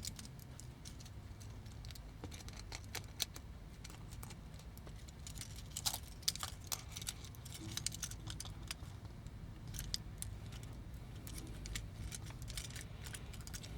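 Plastic parts of a G1 Transformers Blades toy being handled and worked apart by hand: scattered light clicks and taps, thickest in the middle, over a low steady hum.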